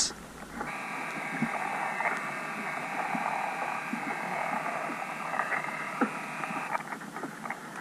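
Heard underwater beneath lake ice: a robotic fishing lure's small motor buzzing steadily for about six seconds, then cutting off near the end. A few faint knocks sound through it.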